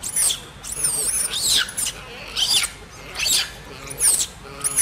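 Baby long-tailed macaque giving a run of thin, high-pitched squeals, each falling in pitch, about seven of them, roughly one every half to one second.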